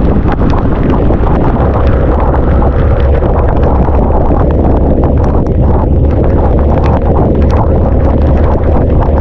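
Boat engine running steadily under way, with wind buffeting the microphone and scattered short knocks.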